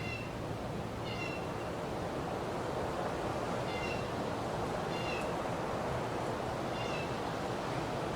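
Hampton Bay Irondale ceiling fan running with a steady whooshing hum. Short, high-pitched chirps come about every one to two seconds at uneven spacing.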